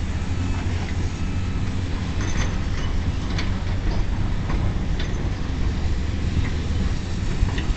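Wind buffeting the camera's microphone, a steady low rumble, with a few faint knocks scattered through it.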